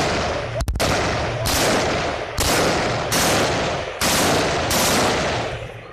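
A rifle fired in steady single shots, about one a second, each shot followed by a long rolling echo; the firing stops and the last echo dies away near the end.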